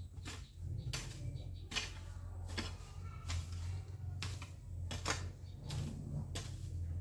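A long-handled garden tool striking the soil in repeated chops, at uneven intervals of roughly a second, over a steady low hum.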